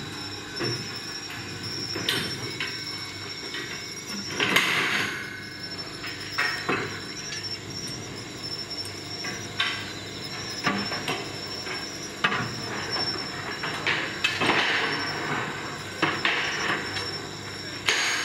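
Irregular metal knocks, clanks and scrapes from workers handling steel rails and lifting gear on a work train's flat wagons, with louder clashes about four and a half seconds in and again around fourteen seconds. Crickets chirr steadily underneath.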